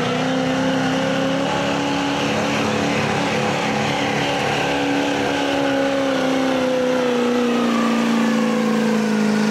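Mega truck engine held at high revs, one steady pitch that climbs slightly over the first couple of seconds and then holds.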